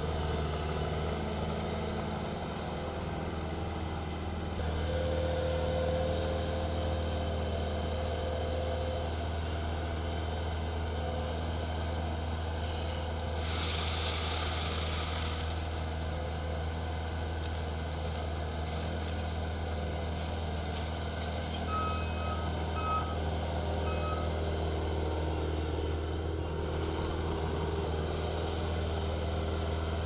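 Bobcat T750 compact track loader's diesel engine running steadily as the machine works. About halfway through there is a burst of rushing noise as gravel pours from its bucket. A reversing alarm gives a few short beeps about two-thirds of the way in.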